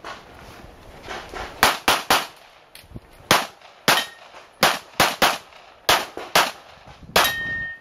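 A string of about eleven handgun shots fired at a competitive pistol stage, several in quick pairs, with one steel target ringing briefly after a hit near the end.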